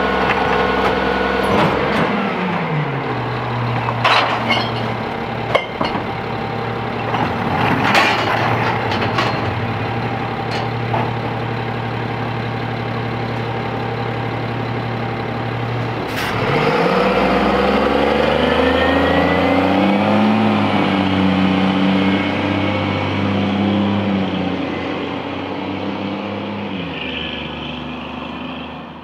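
Peterbilt 320 garbage truck's diesel engine running at raised speed, then dropping back to idle about two seconds in, with a few sharp knocks as trash is tipped into the rear hopper. About halfway through, the engine revs up through several gear changes as the truck pulls away, fading near the end.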